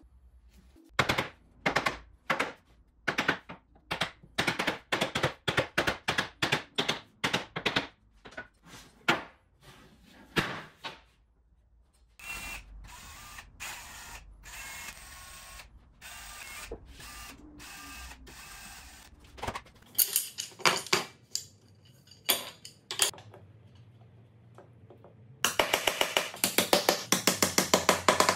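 Hammer knocking on wood, about two blows a second, then a cordless drill running steadily for several seconds while boring into a wooden rail. A few more knocks follow, and near the end a fast, even run of taps.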